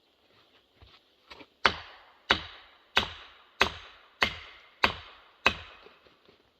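Felling wedge being hammered into a tree's back cut: seven sharp, evenly spaced blows a little over half a second apart, starting about one and a half seconds in, after a few light taps.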